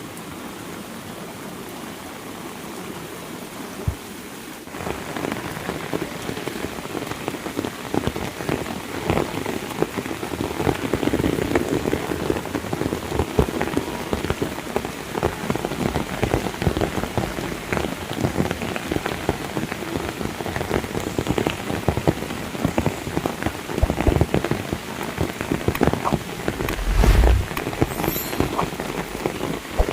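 Heavy rain, a dense patter of countless close drop impacts, growing louder about five seconds in. A brief low rumble comes near the end.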